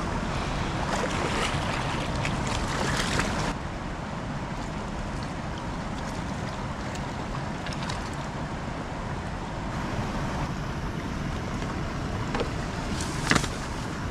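Water splashing and dripping as a wire landing net holding a large catfish is worked in shallow water, with crackly splashes for the first few seconds that then stop abruptly. A steady rushing noise of water and wind runs underneath, and there are a couple of sharp knocks near the end.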